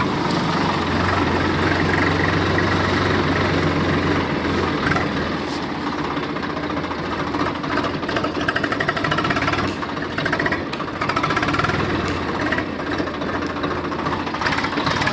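Small electric motor and exposed gear train of a homemade toy tractor running as it tows a trolley, a continuous whirring hum with gear rattle. It is steady for the first few seconds, then turns more uneven and fluttering.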